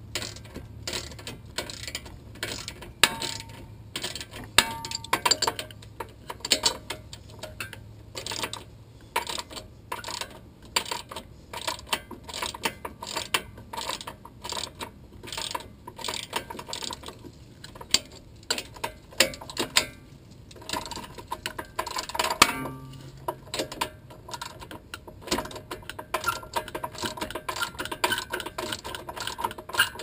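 Hand ratchet clicking in quick runs of strokes, with short pauses between, as the bolts of a new rear wheel hub are tightened a little at a time to draw the hub evenly into its mount.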